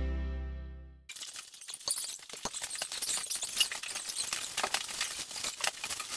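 A music chord fading out, ending about a second in. Then a dense run of crackles, clicks and small knocks as plastic-wrapped insulation bales are handled and carried across a concrete floor.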